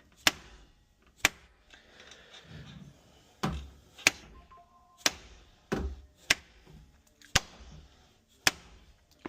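Hammer blows driving a chisel-type mortising tool into the edge of a wooden door: about ten sharp, separate strikes, roughly one a second, unevenly spaced.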